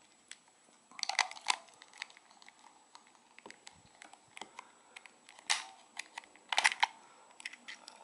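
Small plastic clicks and scrapes as the buttons and casing of an LG Magic Motion TV remote are handled and pried apart by hand, with a few sharper clicks about a second in, again later and in a cluster near the end.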